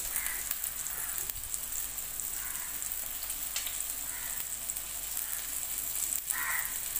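Fish pieces shallow-frying in oil over a low gas flame, sizzling steadily. A few soft plops come through as raw fish pieces are dropped into a pot of curry.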